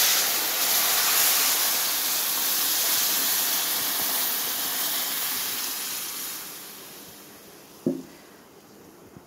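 Sugar syrup poured into semolina roasted in hot ghee, sizzling and hissing as it hits the pan and steams, then fading away over several seconds as the mixture settles to bubbling. A short knock near the end.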